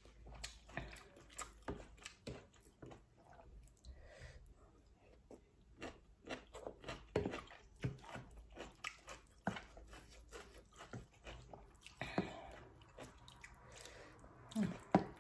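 A person chewing a mouthful of noodles and vegetables close to the microphone, with many small irregular wet clicks and smacks.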